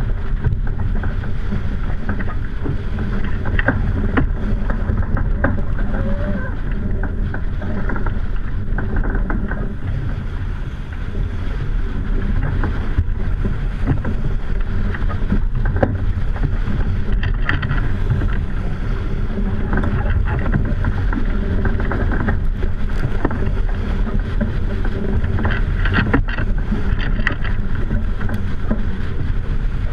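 Wind buffeting the microphone and water rushing along the hull of a racing sailboat heeled hard under sail: a loud, steady rush with sharper splashes of spray here and there.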